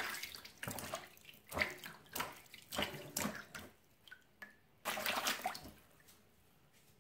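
Water splashing and sloshing in short irregular bursts, with a longer splash about five seconds in: cold water left over from popped water balloons being played with by hand.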